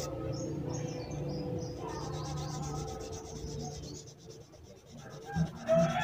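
A small blender-motor carbon brush rubbed back and forth on sandpaper wrapped around a glass bottle: a steady scraping that fades out about four seconds in. The brush is being sanded to even out its unevenly worn contact face. Near the end a rooster starts to crow.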